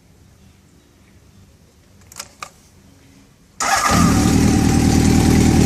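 Two small clicks, then about three and a half seconds in a 1988 Honda CBX 750F's air-cooled inline-four engine fires up with its custom 4-into-2 exhaust and settles at once into a loud, steady idle.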